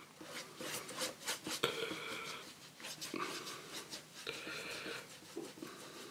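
Watercolour brush rubbing across textured watercolour paper in several scratchy strokes, each under a second long.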